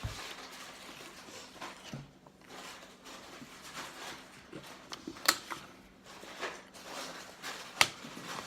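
Eating and handling food: scattered small clicks and rustles, with two sharp clicks, one about five seconds in and one near the end.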